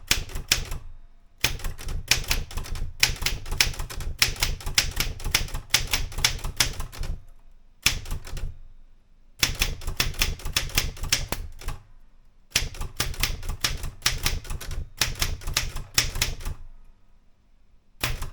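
Erika 105 manual typewriter being typed on: runs of sharp key strikes several a second, broken by short pauses.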